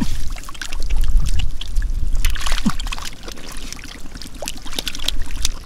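Shallow muddy water sloshing and splashing in quick, irregular splashes over a low rumble.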